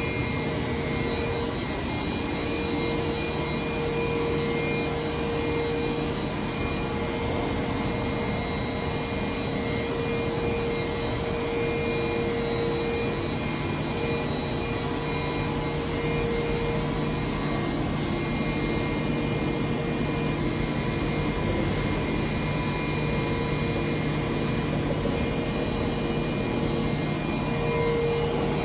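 OPS-Ingersoll 650 five-axis high-speed milling machine running, a steady mechanical whir with several steady whining tones and no change in level.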